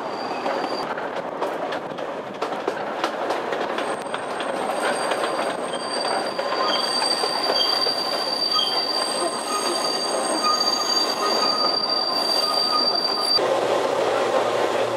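Kurobe Gorge Railway narrow-gauge trolley train running, its wheels clicking over rail joints, then a long high-pitched wheel squeal on a curve from about four seconds in. Near the end the sound changes suddenly to a deeper, steadier rumble inside a tunnel.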